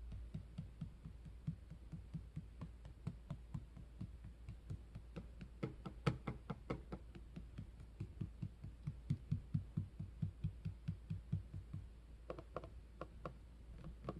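Rapid repeated tapping on an Acer Aspire 5 laptop's touchpad and case, about four to five knocks a second, with a few sharper clicks among them. It is the loose touchpad and case clacking hollowly, a rattle that the owner damps by packing foam behind the case.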